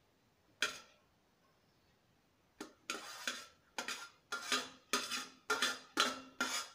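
Metal spoon scraping and clinking against a steel plate and an aluminium pot while spooning cooked rice across: one short scrape about half a second in, then a string of scrapes about two a second through the second half.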